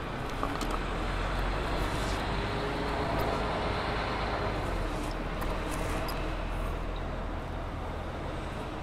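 City street traffic noise: a road vehicle passes, its sound swelling over the first few seconds and then easing off.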